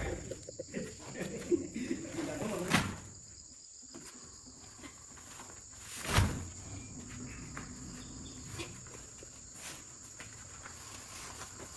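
Steady high-pitched insect trilling, like crickets, with a few scattered knocks; the loudest knock comes about six seconds in.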